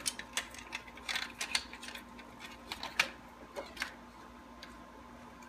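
Light clicks and rattles of plastic and wiring as the electronics of a Quanum Nova quadcopter are lifted out of its cracked plastic fuselage shell, with one sharper click about three seconds in. The clicks die away for the last second or so.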